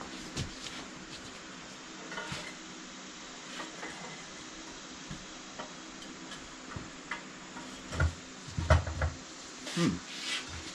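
Metal clinks and knocks of a small steel wheel rim being set onto a manual tire changer and its welded clamp tabs, growing louder and busier with several heavy clunks near the end, over a steady low hum.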